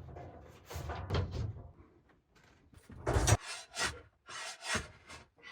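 Wood rubbing and scraping with several knocks as things are handled, and one sharper, louder knock about three seconds in.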